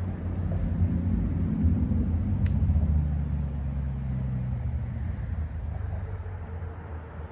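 Low engine rumble of a passing road vehicle, swelling over the first few seconds and then slowly fading away. A single sharp click comes about two and a half seconds in.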